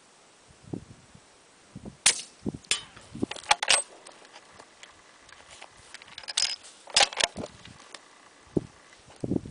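Gunfire on a shooting range: about eight sharp reports, several coming in quick runs a fraction of a second apart, in two clusters about two and six seconds in.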